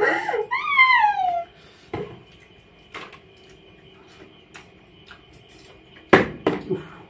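Part-filled plastic water bottle thudding onto a tiled floor during a bottle flip: a knock about two seconds in, a lighter tap a second later, and a loud thump with a second knock about six seconds in. Near the start a voice gives a long falling 'ooh'.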